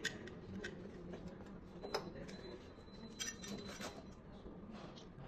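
Light clicks and small clatters of a cable, its connector and small parts being handled on a workbench, a cluster of them about three seconds in, over a faint steady hum.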